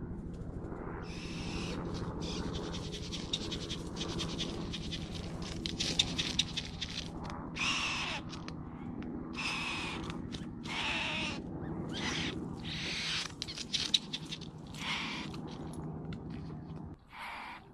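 Great bowerbird displaying at its bower with a run of harsh, hissing, grating calls, each about half a second to a second long, repeated from about a second in until near the end. A low steady hum runs beneath.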